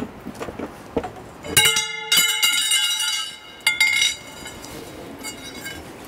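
Metal roof-support bars of a pop-up trailer being unhooked and set down, clinking and ringing: a few light clicks, then a loud ringing clang about a second and a half in and a shorter one near four seconds.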